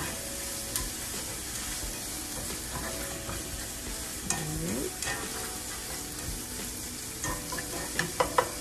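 Diced onions and bacon sizzling in oil in a hot nonstick skillet as they are stirred with a slotted spatula. Near the end there are a few sharp clicks of the spatula against the pan.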